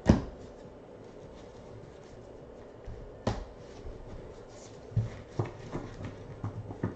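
Trading cards being handled by hand: a sharp tap just as it begins, another about three seconds in, and a run of lighter taps and rustles near the end as a stack of cards is handled.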